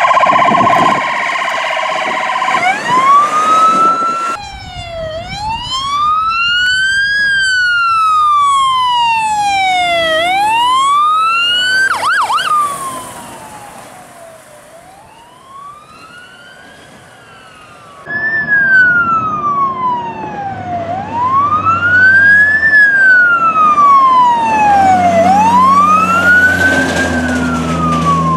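Fire truck sirens: a high steady tone at first, then a slow wail rising and falling every few seconds, with a brief fast warble about twelve seconds in. The wail fades for a few seconds and comes back loud, with a truck engine's drone underneath near the end.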